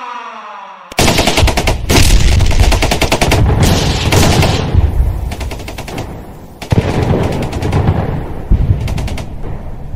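Recorded battle sound effect of machine-gun fire and explosions played as part of a dance track: rapid bursts of gunfire start abruptly about a second in, with heavy blasts in the first few seconds. After a short lull, a fresh burst comes, then scattered single shots toward the end.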